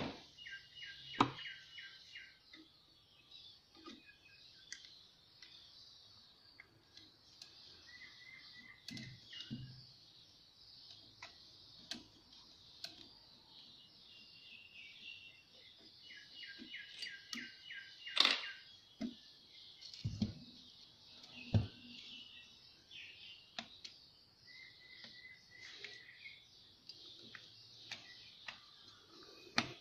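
Scattered metal clinks and knocks of hand tools and steel injector pipes as a diesel injection pump's fuel lines are taken off. Behind them, birds chirp steadily in repeated short runs of calls.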